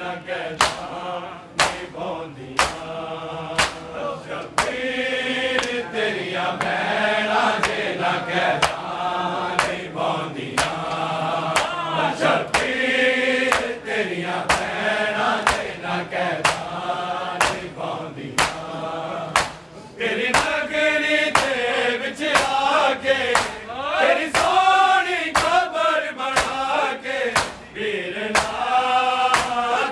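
Men's voices chanting a Punjabi noha (Shia lament) over the crowd's matam: bare-handed chest-beating slaps keeping a steady beat of about three every two seconds.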